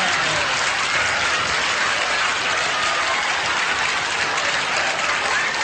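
Sitcom studio audience applauding steadily.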